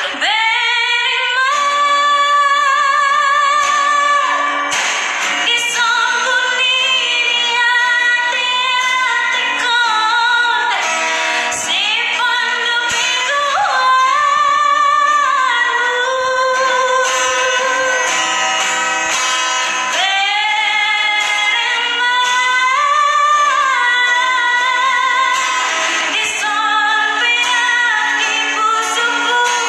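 A woman singing a song with vibrato to her own strummed acoustic guitar.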